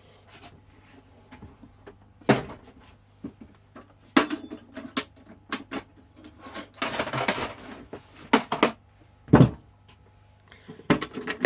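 Scattered knocks and clunks of a small toolbox being picked up and handled, with a rattle of its contents about seven seconds in and a heavier thump as it is set down a couple of seconds later.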